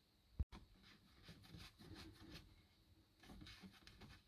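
Near silence with faint rustling from hands handling a plastic autopilot display unit and its cable, and one short sharp click about half a second in.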